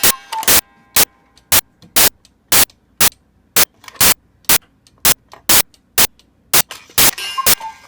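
Jacobs cuckoo clock's pendulum movement ticking loudly and steadily, about two ticks a second in an alternating tick-tock, running again after repair. Near the end a faint hiss with short tones joins the ticking.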